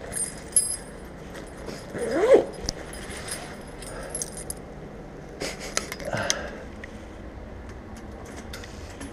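Keys jangling, with a short squeak about two seconds in, then a few clicks and knocks as a building's front door is unlatched and pushed open.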